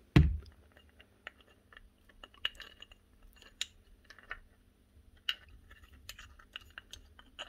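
Small metal parts inside a Hitachi nibbler's greasy gear head being handled and worked loose by hand: a soft thump right at the start, then scattered light clicks and scrapes.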